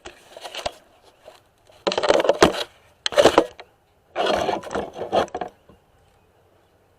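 Hand tools scraping and rattling in four short bursts with quiet gaps between, then quiet.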